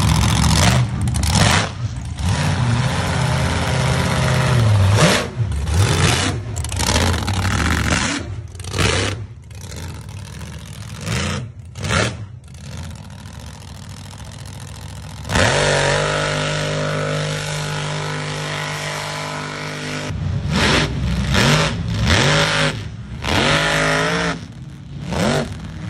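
Mega mud truck engines revving hard in uneven surges. About fifteen seconds in the sound switches abruptly to a steady engine drone, and revs rise and fall again near the end.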